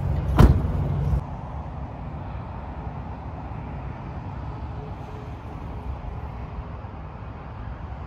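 A vehicle door shuts with a single sharp thump about half a second in, over music that cuts off about a second in. After that comes a steady hum of road traffic in the open air.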